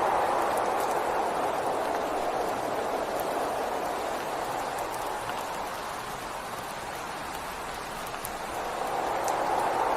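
Steady rain falling, an even hiss with faint scattered drop ticks. It eases slightly through the middle and swells again near the end.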